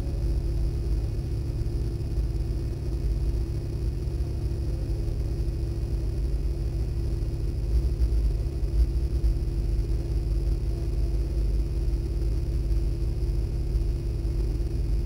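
Porsche Boxster's flat-six engine idling while the car stands still: a steady low rumble with a steady hum, picked up through the car's hood-mounted camera.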